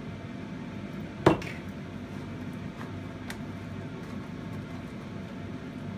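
A glass olive-oil bottle set down on the kitchen counter with one sharp knock about a second in, then a few faint soft ticks as hands rub the oil into chicken breasts on a cutting board, over a steady low hum.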